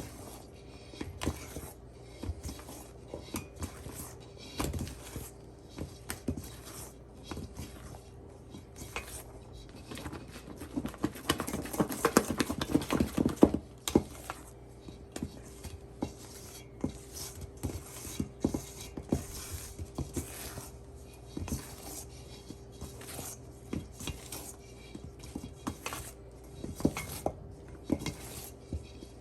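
A utensil scraping and clicking against a mixing bowl as whipped topping is folded into a cream cheese mixture, in irregular strokes that get busier and louder about halfway through. A faint steady hum runs underneath.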